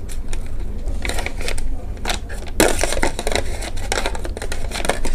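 Handling noise as neckband earphones are pulled out of a moulded packaging tray: light clicks and scrapes, with a louder rustling crinkle about two and a half seconds in.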